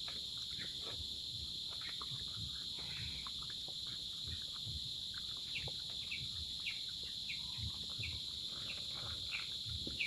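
Outdoor rural ambience: a steady, high insect drone throughout, and in the second half a bird giving short chirps, about two a second.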